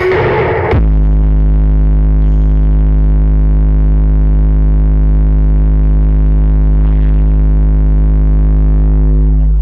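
Loud, steady low synthesizer bass drone played through a large sound system, held on one pitch for about eight seconds after a short noisy start, and breaking off just before the end.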